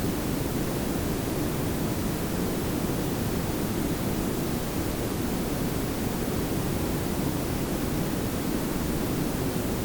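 Layered pink and brown noise: a steady, even hiss over a low rumble, unchanging throughout.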